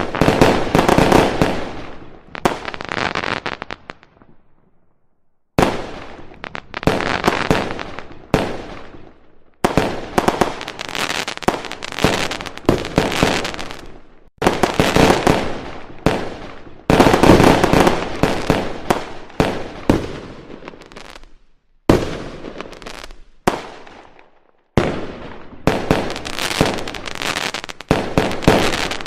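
Aerial firework shells bursting one after another, each bang fading out over a second or two. The sound stops abruptly a few times, leaving short silent gaps.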